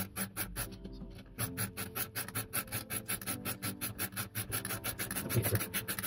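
Rapid, even ratcheting clicks, about six a second, picking up after a sparse start, as the loading screw of a drone-arm bend-test bench is wound in by wrench to press on a carbon-fibre arm.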